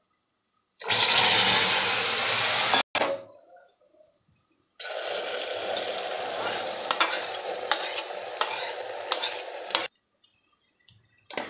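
Water poured into hot caramel in an aluminium kadai, hissing loudly for about two seconds before cutting off abruptly. Then a lower, steady sizzle with repeated metal clinks as the caramel is poured into the cooked rice and stirred with a steel ladle.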